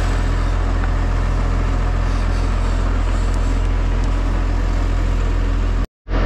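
Tractor diesel engine idling steadily, warming up its engine oil before an oil change. The sound cuts out for a moment near the end.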